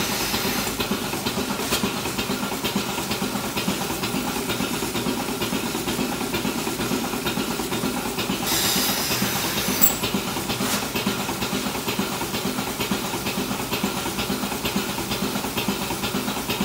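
Goat milking machine running: steady vacuum hiss with the rapid rhythmic ticking of the pulsators. About halfway through comes a louder burst of hissing air as a teat cup is fitted to a goat.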